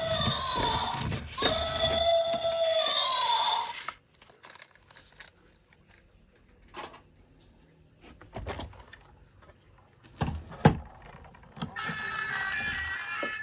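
An electronic tune with gliding tones cuts off about four seconds in. A few light clicks and knocks follow, the sharpest shortly before a steady electronic tune starts up again near the end.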